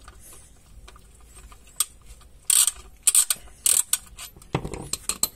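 Ratchet wrench with a 19 mm socket clicking in several short bursts as it is worked back and forth on a car's oil drain plug that is stuck tight and won't turn easily.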